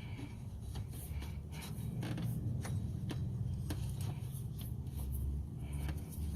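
New rubber serpentine belt being worked by hand onto the engine's lower pulleys: scattered rubbing, scraping and light clicks over a low steady rumble.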